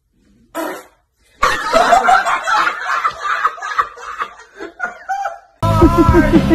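A man laughing hard in a long, loud fit, from about a second and a half in. Music starts abruptly near the end.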